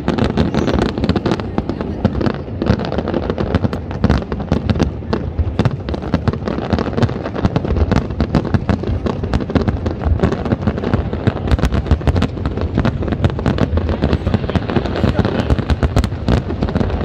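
Aerial fireworks shells bursting in a rapid, unbroken barrage: many sharp cracks a second over a steady low rumble.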